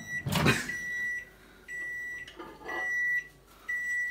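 Microwave oven beeping at the end of its heating cycle: a high electronic tone about once a second, five times. The door latch clicks open about half a second in.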